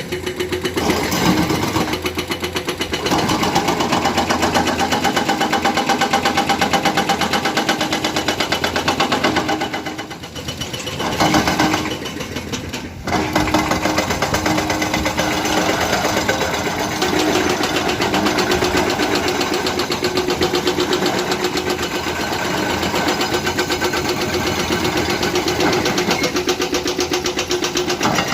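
Heavy diesel engine of construction machinery running steadily with a rapid clatter, its sound dropping briefly about ten seconds in and cutting out for a moment near thirteen seconds before picking up again.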